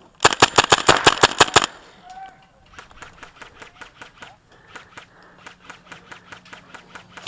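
Airsoft gun firing a rapid string of about ten shots close to the microphone, then fainter, steady, rapid clicking of airsoft gunfire further off.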